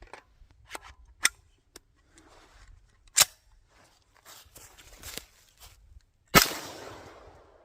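Sharp metallic clicks and clacks of a 3D-printed MAC-11-style 9mm pistol being worked while clearing a failure to feed. About six seconds in comes a single loud shot with an echoing tail.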